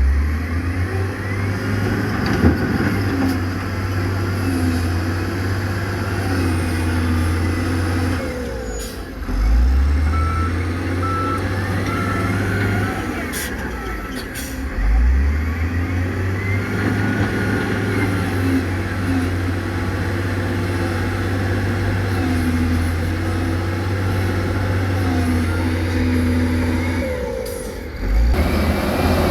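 Heavy diesel construction machinery running under load, its engine dropping and revving back up twice, with a few short beeps about ten seconds in.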